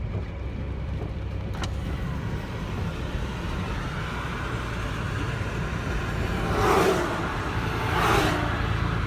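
Steady low rumble of road traffic, with two vehicles swishing past, one about seven seconds in and another about a second later.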